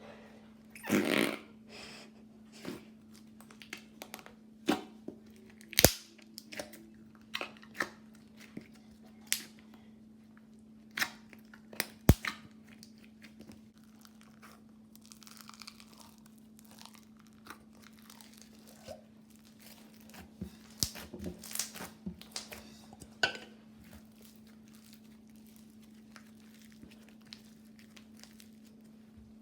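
Slime being handled, squished and poked: scattered crackles, clicks and sharp pops at uneven intervals, with a faint steady hum underneath.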